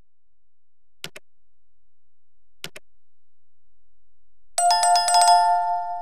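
Subscribe-animation sound effects: a soft mouse click about a second in and a quick double click near three seconds. Then, a little before the end, a small notification bell rings with several rapid strikes and fades out.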